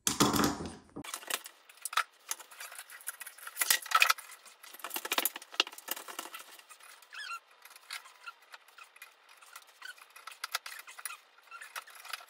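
Sheet-metal parts of a bathroom exhaust fan housing clicking, rattling and scraping as they are worked by hand, with a louder scraping noise in the first second and a short squeak about seven seconds in.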